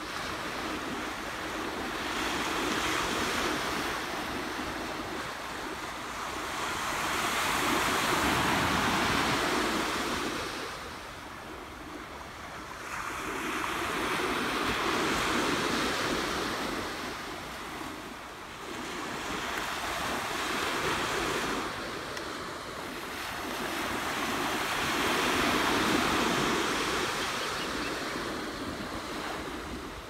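Small waves breaking and washing up a sandy beach, the surf swelling and fading in slow surges about every five to six seconds.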